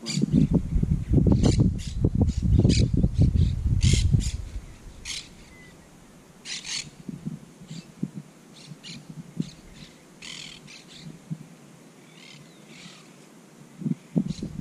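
Birds calling, short high calls at irregular intervals throughout, over a loud low rumble during the first four seconds.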